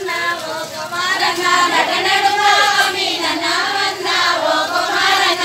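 A crowd of marchers singing together, mostly high women's voices, in a chant-like song.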